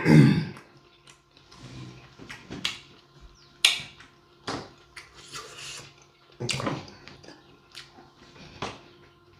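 Close-miked mukbang eating of seafood in sauce: wet chewing and lip smacking, broken by several sharp clicks and smacks.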